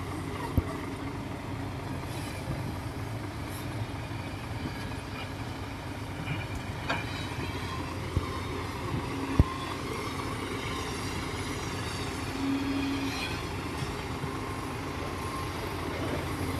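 Komatsu D58 crawler bulldozer's diesel engine running steadily, with a few sharp metallic knocks, one near the start and a louder one about nine seconds in.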